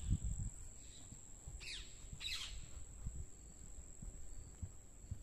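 Quiet outdoor ambience: a steady high-pitched insect drone like a cricket, with two short falling bird calls about two seconds in, half a second apart. Underneath is a faint low rumble with a few soft knocks.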